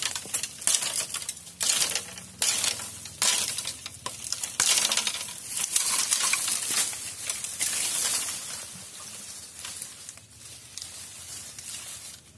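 Dry bamboo stalks and branches cracking and snapping and dry bamboo leaves crunching as a machete clears through a bamboo thicket: a run of sharp crackling bursts that thins out near the end.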